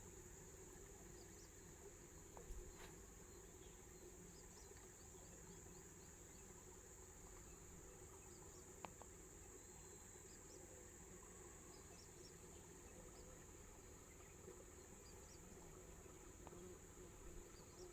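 Faint, steady high-pitched insect chorus, an unbroken drone with a few soft clicks.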